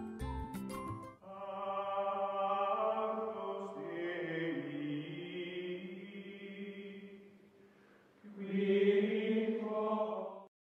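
Slow outro music of long, held chant-like chords in two phrases. The second phrase starts about eight seconds in and stops abruptly just before the end. The first second holds the tail of a livelier piece with sharp beats.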